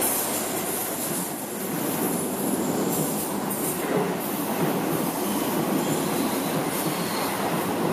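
Electric commuter train running close by, with a steady rumble of wheels on rail and some wheel squeal as it takes a curve.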